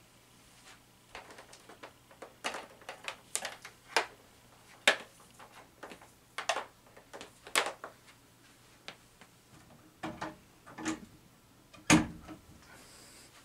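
Scattered light clicks and taps from the upright vacuum's power cord and plug being handled, with a heavier thump about twelve seconds in.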